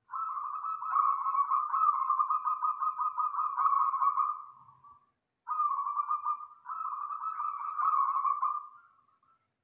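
Local zebra dove (perkutut) cooing in two long rolling bouts of rapid, closely packed notes, the second starting after a short break about five and a half seconds in.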